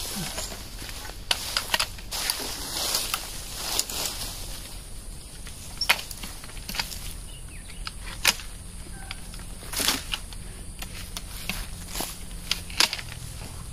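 Long-reach pole pruner cutting branches off a young Siamese rosewood tree: scattered sharp clicks and snaps of the blade and twigs, with leaves rustling now and then.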